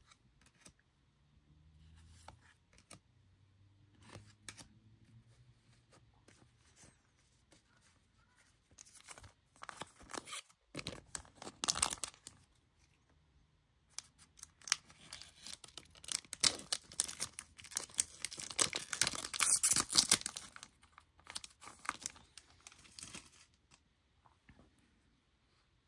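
Trading card pack wrapper being torn open and crinkled by hand, in crackling bursts after a few seconds of light handling, loudest about three-quarters of the way through.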